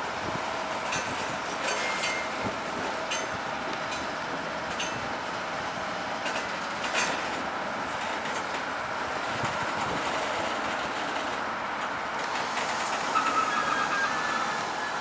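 Stainless-steel passenger carriages of the Indian Pacific rolling slowly past as the train eases in to stop, a steady rumble with wheels clicking over rail joints at irregular intervals during the first half. About thirteen seconds in, a brief high wheel or brake squeal.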